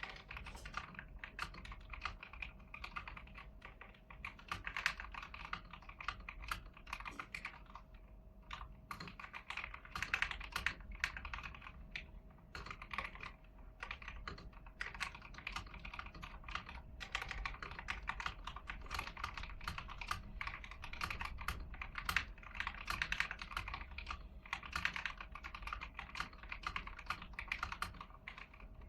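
Continuous fast typing on an AIGO A100 mechanical keyboard with yellow switches, stock and unmodified: a dense run of key clicks, slowing briefly a couple of times.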